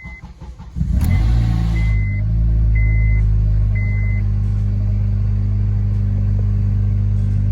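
A straight-piped Honda Accord is cranked and fires on a cold start about a second in, then settles into a loud, steady, deep idle. A high chime beeps about once a second during the first few seconds.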